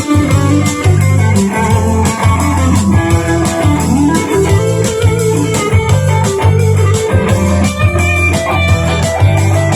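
Electric Stratocaster with Lace Sensor Gold pickups playing lead lines through a Missing Link Highway 41 overdrive pedal, along with a rock backing track with bass and drums.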